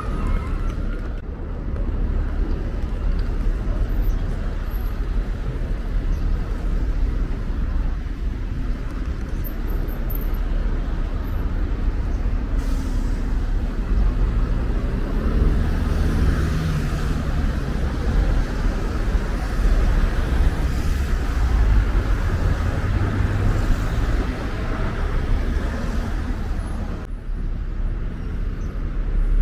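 Steady rumble of street traffic, with a vehicle's engine or motor rising and then falling in pitch around the middle as it passes.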